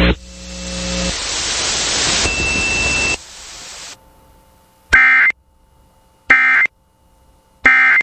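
A hiss of static for about three seconds after the spoken alert ends, then three short identical bursts of Emergency Alert System end-of-message data tones, each a harsh digital screech, about a second and a half apart: the signal that the alert is over.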